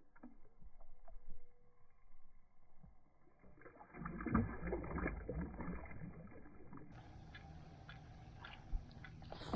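Handling and water noises on a fishing kayak: faint ticks at first, then from about four seconds in, a low noisy wash with many small knocks and clicks against the hull.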